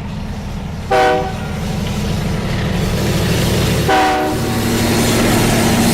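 Locomotive horn sounding two short blasts about three seconds apart over a steady low engine rumble.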